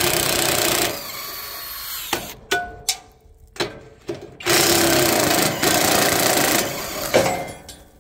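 Flex 24-volt cordless impact wrench on its third setting, hammering rusty U-bolt nuts off a trailer leaf spring. It runs in two long bursts, the first ending about a second in and the second from about four and a half to six and a half seconds in, each followed by a quieter spell, with a few knocks between.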